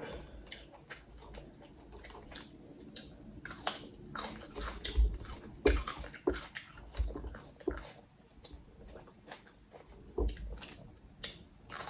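Close-miked chewing of clams and red pepper: irregular wet mouth clicks and smacks, a few louder ones about five and a half seconds in and near the end.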